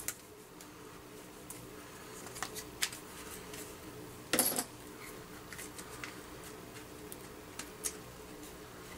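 Plastic housing of a Milwaukee M18 Fuel impact driver being handled and worked at by hand during disassembly: scattered light clicks and taps, with one louder brief scrape about halfway through. A steady faint hum runs underneath.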